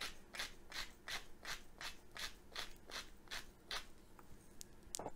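Hand spice mill grinding coriander seeds, one grinding stroke with each twist, about three a second. The grinding stops near the end, followed by a few light clicks.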